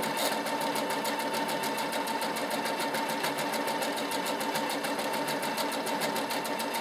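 Computerised sewing machine stitching out letters on its own, its needle running in a fast, even rhythm over a steady motor whine.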